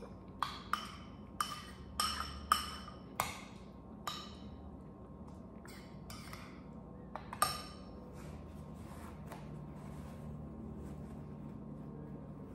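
Metal spoon clinking against a red ceramic bowl while stirring, about ten sharp ringing taps over the first eight seconds, then it stops.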